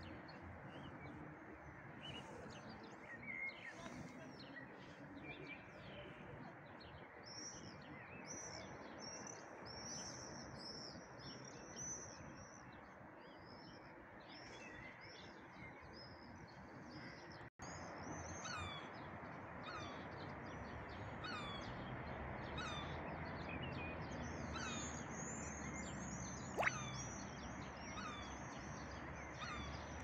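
Many birds chirping and calling, with high screeching calls and a short falling note repeated about once a second in the second half, over a steady background hum of the town. The sound drops out briefly about halfway, and there is a single sharp click near the end.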